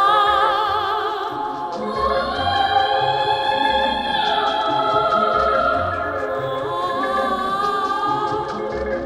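Music of several voices singing long held notes with vibrato, in a classical vocal style.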